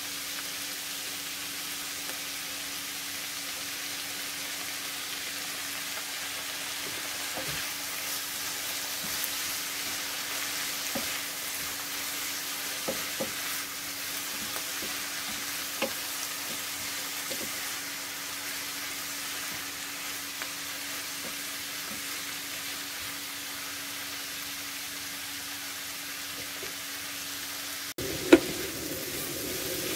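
Sliced vegetables sizzling in a nonstick frying pan while a wooden spatula stirs them, with scattered taps of the spatula on the pan. A steady low hum runs under the frying, and there is one loud knock near the end.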